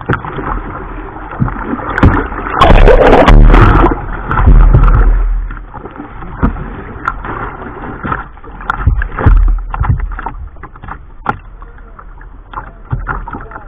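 Sea water splashing and rushing over a plastic whitewater kayak's bow and deck, with sharp slaps of water and a low rumble underneath. The loudest rush comes about three to five seconds in, with another surge near nine seconds.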